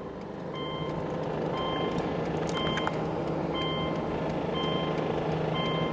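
Steady engine and road noise inside a moving car, with a steady hum, over which an electronic chime gives short beeps about once a second.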